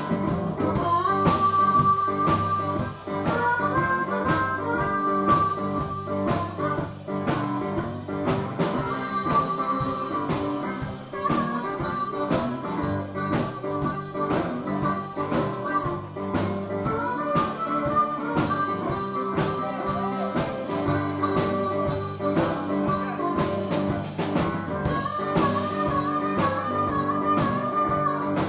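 Live blues band playing: a harmonica plays a melody of held, bending notes over electric guitars and drums keeping a steady beat.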